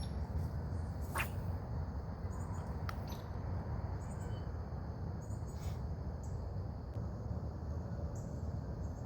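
Insects trilling steadily at a high pitch, with short high bird chirps every couple of seconds over a low wind rumble. A sharp click sounds about a second in.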